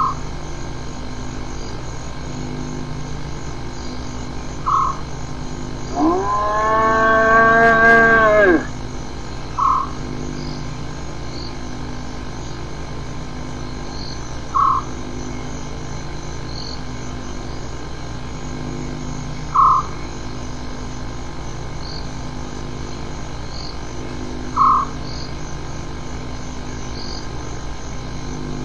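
Spotted hyena giving one long, drawn-out call about six seconds in, lasting about two and a half seconds; its pitch rises at the start, holds, then drops away. Short high calls come about every five seconds over a steady film hiss and hum.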